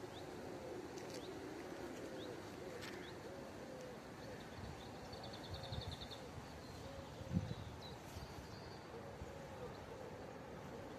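Level-crossing warning bell ringing faintly in a steady repeating rhythm, the signal that the crossing is closed for an approaching train, with birds chirping in short rapid trills.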